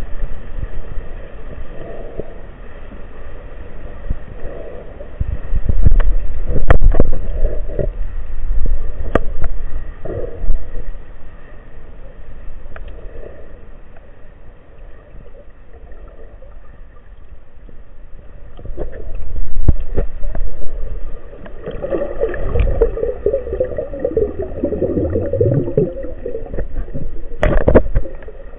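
Underwater sound heard through a camera's waterproof housing: low rumbling water movement with scattered sharp clicks and knocks. Near the end comes a bubbling gurgle lasting a few seconds.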